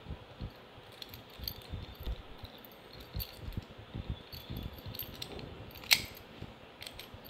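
Mobaj Classic 7-lever steel padlock and its keys being handled: scattered light metallic clicks and rattles, with one sharp click about six seconds in.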